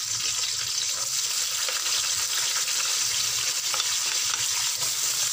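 Chopped red onion and garlic sizzling steadily in hot oil in a wok, frying with mustard and fennel seeds until fragrant.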